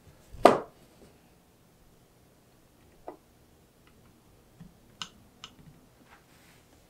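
Leathercraft tools being handled on a cutting mat. There is one sharp knock about half a second in, then a few light clicks and taps as dividers are worked along a leather edge.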